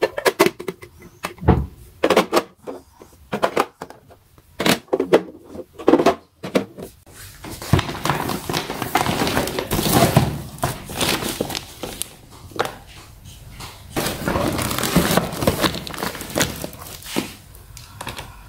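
Rigid clear plastic storage containers clacking and knocking against each other as they are handled. About seven seconds in this gives way to continuous rustling and scraping as packaged picture frames are handled and slid out.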